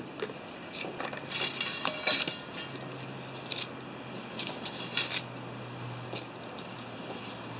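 Knife slicing a raw chicken breast on a foam meat tray: scattered light clicks and taps of the blade, the sharpest about two seconds in, with a low steady hum coming in underneath about three seconds in.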